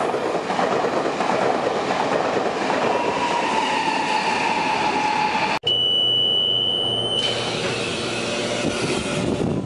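Passenger train running past on the rails, a steady rush of wheel and track noise with a faint wheel squeal partway through. After an abrupt break about five and a half seconds in, a steady high-pitched beep sounds for about a second and a half over the continuing train noise.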